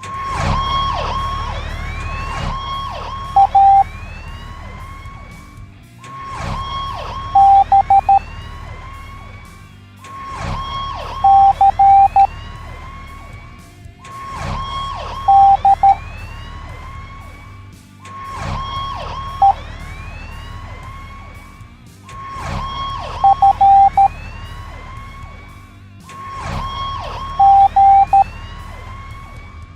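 Cartoon siren sound effects repeating every four seconds, each followed by a short group of beeps: Morse code dots and dashes spelling out one letter at a time, starting with A (one dot and one dash), with E as a single short beep.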